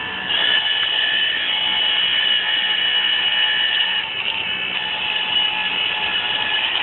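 A power tool's motor running steadily with a high-pitched whine over a rushing noise, dipping a little in level about four seconds in.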